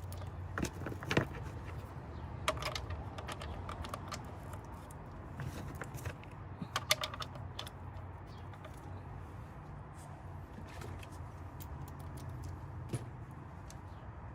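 Scattered light clicks and taps of parts and tools being handled as the engine cover is set back in place and its 10 mm bolts are started by hand, over a steady low hum.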